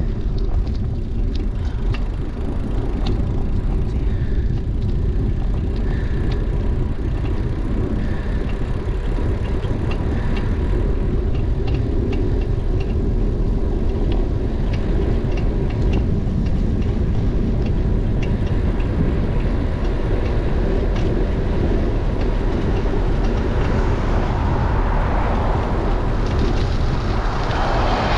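Steady wind rush on a GoPro HERO9 Black's microphone and bicycle tyres rolling on asphalt, with scattered light ticks. Near the end a motor vehicle comes up from behind and grows louder as it overtakes.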